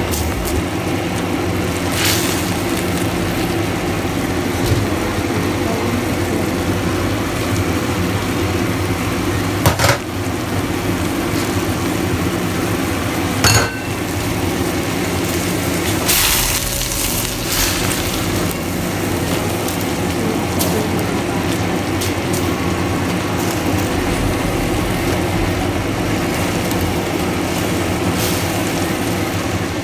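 Leafy greens cooking in a hot wok: a steady sizzle with a low hum under it. A plastic spatula clicks and scrapes against the wok a few times.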